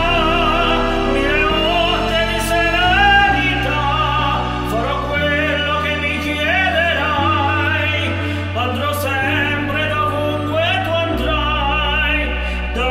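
Music from an Italian pop song with no words sung: a wavering melody line over held bass notes that change about every two seconds.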